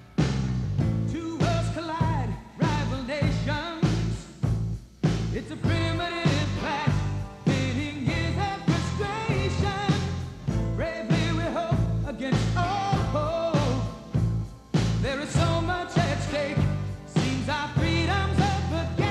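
Background music: a rock song with singing over a steady drum beat.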